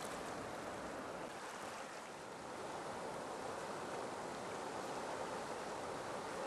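Whitewater river rapids rushing, a steady even noise.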